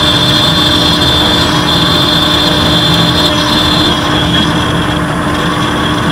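CNC engraving router's spindle running while its end mill cuts a shoe-mold pattern into a metal block: a steady, loud cutting noise with a constant high whine.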